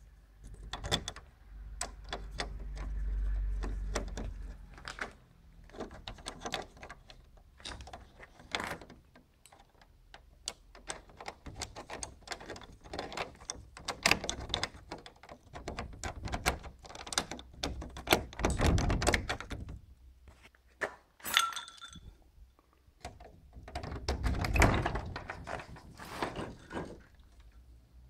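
A homemade metal rod tool works the inner mechanism of a mortise door lock through the hole left by a snapped-off euro cylinder. It makes repeated clicks, knocks and metallic rattling and scraping, in several busier spells, as it tries to lift the locking bolt. A short squeak comes about two-thirds of the way through.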